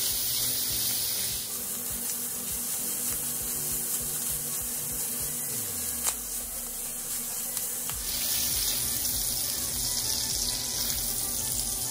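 Sliced sausage sizzling in hot oil in a cast-iron skillet as it browns and is stirred. The sizzle dims about a second and a half in and picks up again around eight seconds.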